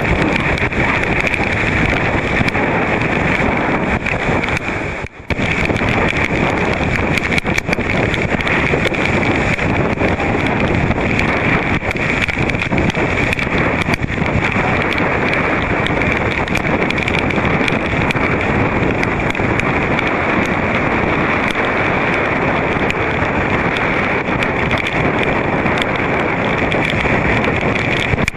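Strong storm wind from Hurricane Irene blasting across the microphone in a loud, steady rush, with choppy lake waves beneath it. The rush dips briefly about five seconds in.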